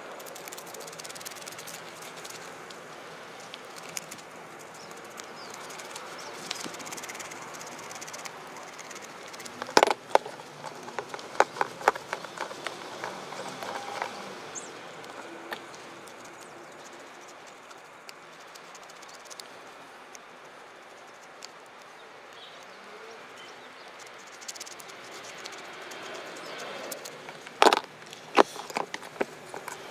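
Cloth rag rustling as small derailleur parts are wiped by hand, with sharp clicks and knocks of small metal parts and tools handled on a plastic tray in two bunches, about ten seconds in and near the end.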